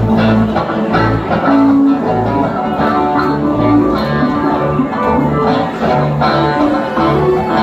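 Live rock band playing: electric guitars over a moving bass line and a drum kit.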